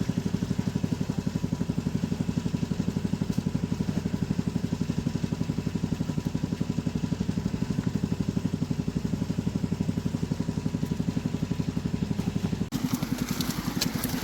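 A small engine idling steadily with an even, rapid pulse. Near the end it cuts off abruptly, giving way to crackling and clicking.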